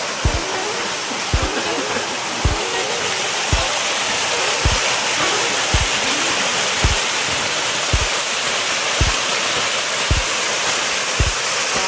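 Waterfall rushing steadily. Background music runs over it with a slow, even beat, about one thump a second.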